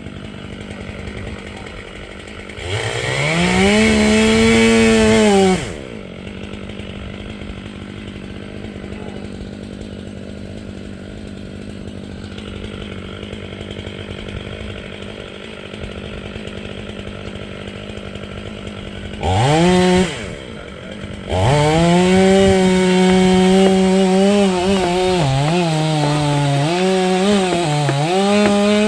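Two-stroke chainsaw idling, revved up hard for about three seconds, blipped briefly, then held at full throttle for the last eight seconds, its pitch dipping and recovering several times as it bogs under load cutting into a large pine.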